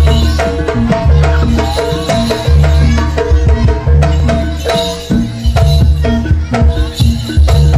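Live Javanese jaranan gamelan music accompanying the Pegon dance: kendang hand drums beat a rhythm with deep low strokes about once a second, over repeated pitched metallophone notes and a jingling rattle.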